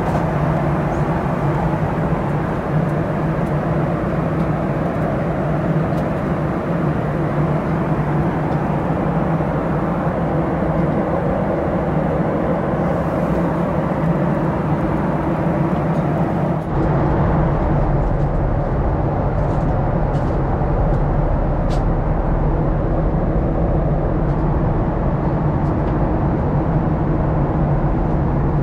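Steady cabin noise aboard a Boeing 737-800: a drone from its CFM56-7B engines and rushing air, with a constant low hum. About 17 seconds in, the sound changes abruptly to a deeper rumble with less hiss.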